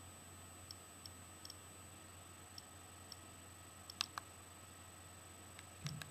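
Faint scattered ticks, with sharper clicks about four seconds in and again near the end, from handling the repaired iPod video.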